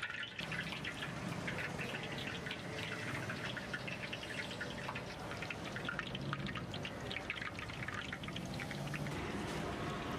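Battered chicken pieces deep-frying in hot oil in an iron kadai, sizzling with a dense run of small crackles and pops.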